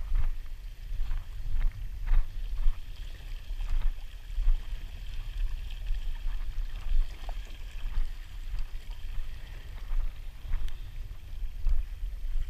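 Wind buffeting an action-camera microphone, with water lapping and slapping against a kayak hull.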